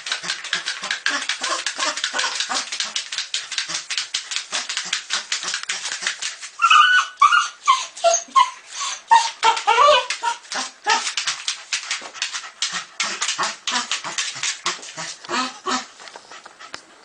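A dog whining and yipping in a loud burst around the middle, over a rapid, continuous run of short huffs and clicks, as it faces a hedgehog.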